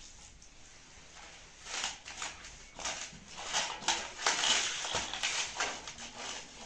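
Pakora batter being mixed by hand in a steel bowl: sliced onion and potato with greens and gram flour, wetted with a little water. Irregular rustling strokes start about two seconds in.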